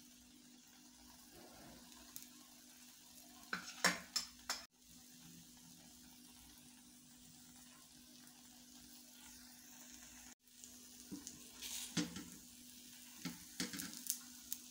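Thin egg-and-milk paratha batter frying with a faint, steady sizzle in an oiled pan. A utensil scrapes against the pan a few times about four seconds in, and again near the end as a spatula lifts the paratha's edge to turn it.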